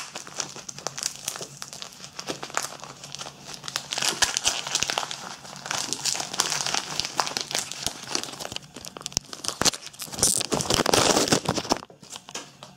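Wrapping being crinkled and torn open by hand as a small gift is unwrapped, with a dense run of crackles and rustles that is loudest and tears near the end, then stops just before the end.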